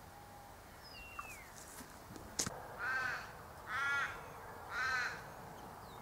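Australian raven giving three drawn-out caws about a second apart. A sharp click comes just before the calls, and a faint falling whistle about a second in.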